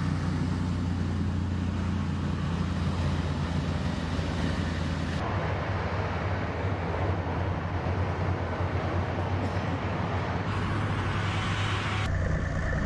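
A steady, low engine drone under a rushing noise. Its character changes abruptly about five seconds in and again near the end.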